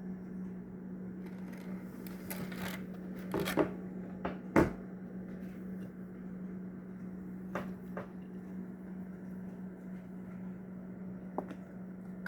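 Diecast toy cars and a plastic Plano storage case being handled: scattered light clicks, knocks and rustles as a car is set into a compartment, the sharpest knock about four and a half seconds in, over a steady low hum.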